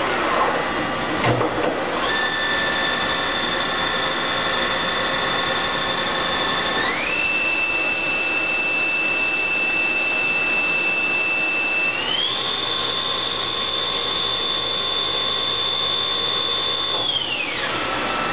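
Spindle of a SANCO SM-3000G CNC double column machining center running with a steady whine. It steps up in pitch twice, about seven and twelve seconds in, then winds down near the end. A short clunk comes about a second in.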